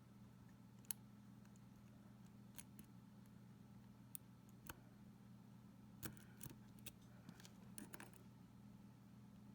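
Faint, sparse metallic clicks of a lock pick and tension wrench working the pins of a Mul-T-Lock Integrator euro cylinder, with a sharper click about a second in and a cluster of clicks from about six to eight seconds in. The cylinder is in a false set partway through picking.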